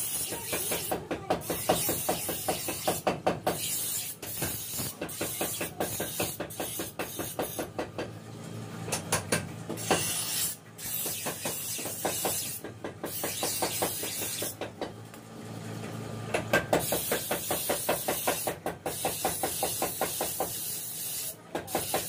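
Bench grinder's abrasive wheel grinding the edge of a steel sickle blade: a hissing grind with rapid rhythmic pulsing as the blade is worked against the wheel, over the steady hum of the motor.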